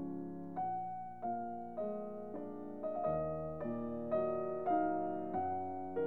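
Gentle background piano music: notes and chords struck at an even pace, about one every half second, each fading away.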